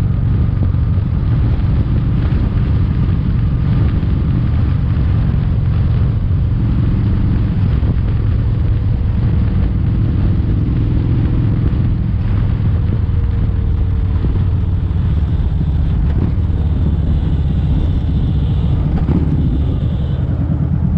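Kawasaki Vulcan 1700 Vaquero's V-twin engine running steadily at highway cruising speed, heard from the rider's position with wind and road noise.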